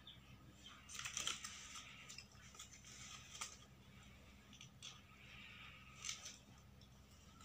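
Faint rustling of stiff craft paper as a paper flower is pressed and settled onto a paper-covered board, loudest about a second in, followed by a few light clicks and taps. A low steady hum runs underneath.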